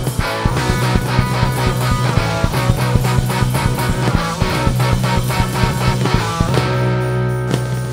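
A rock band playing: electric guitar, electric bass and drum kit, with a held bass note under a steady drum beat.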